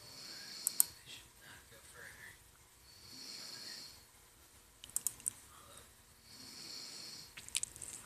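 A sleeping woman snoring, with a faint hissing rasp about once every three seconds. Between the snores come small clusters of sharp computer-mouse clicks.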